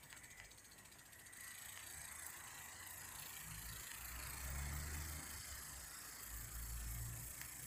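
Lawn impact sprinkler running: fast ticking of its ratchet arm in the first second or so, then a steady high hiss of water spray. Irregular low rumbles come and go over it.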